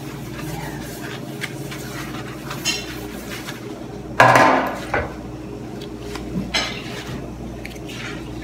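Metal baking tray handled and set down on a table, with one loud clatter about four seconds in that rings briefly, and smaller knocks and clinks around it, over a steady low hum.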